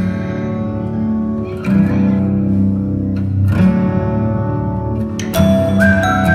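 Background music: strummed acoustic-style guitar chords changing about every two seconds, with a higher held melody line coming in near the end.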